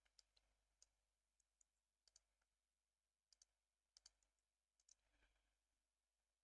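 Near silence with faint, scattered computer keyboard and mouse clicks, some in quick pairs.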